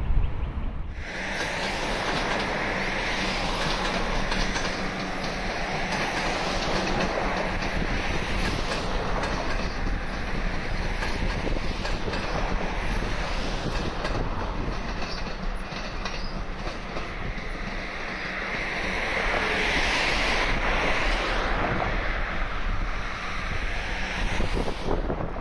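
Melbourne Metro electric suburban train running along the tracks, a steady rumble and clatter of wheels on rail that starts abruptly about a second in and grows louder near the end.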